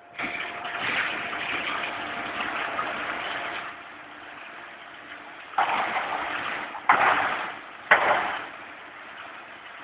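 Light-steel hollow-profile roll-forming machine running, with a steady motor hum. A loud, noisy stretch for the first three and a half seconds, then three short loud bursts with sharp starts about a second apart.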